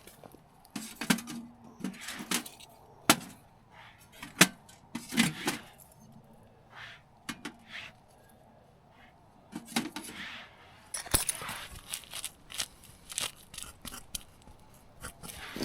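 Camping gear being handled: an irregular string of sharp clicks, light knocks and short rustles, with quiet gaps between them.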